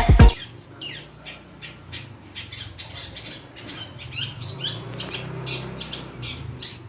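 A long-tailed shrike (cendet) giving a rapid run of short chirps and harsh squawks, some sweeping up or down in pitch: a bird practising its song. Dance music cuts off right at the start.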